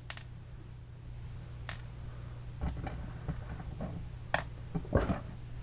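Scattered clicks and light knocks of small plastic and metal parts of an opened airsoft version 2 gearbox being handled, more frequent in the second half.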